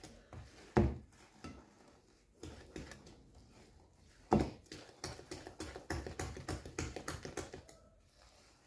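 Silicone spatula stirring and scraping thick semolina batter in a plastic bowl, soft wet scraping and light tapping, with two dull knocks, one about a second in and a louder one a little past the middle.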